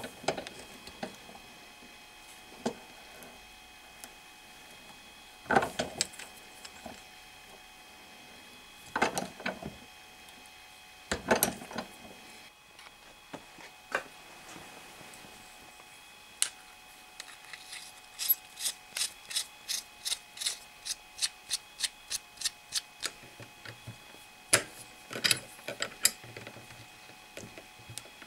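Clicks and knocks of hand assembly: a bolt carrying a stack of sandpaper discs tightened in a vise, then fitted into a drill-press chuck. About two-thirds of the way through comes a run of evenly spaced ratchet-like clicks, about three a second.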